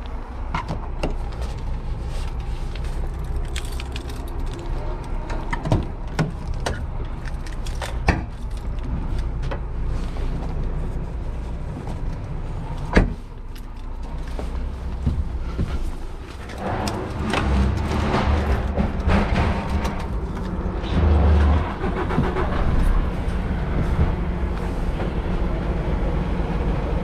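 A truck's diesel engine idling with a steady low rumble, with a few sharp clunks and knocks as the cab's side locker and then the cab door are handled and the driver climbs in. The busiest handling noise comes a little after halfway.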